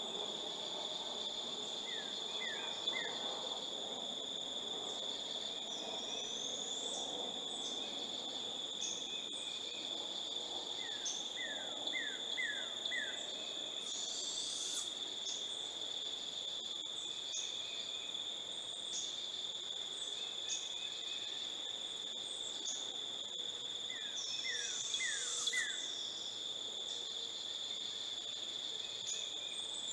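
A steady, high-pitched insect trill, typical of crickets, runs throughout. Over it come brief bird calls: three quick runs of short falling notes, and two louder rising calls around the middle and near the end.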